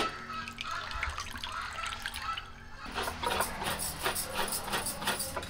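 A sharp crack as a coconut is struck open, then its water trickling and dripping out onto the tray, followed from about three seconds in by a run of light knocks and clicks.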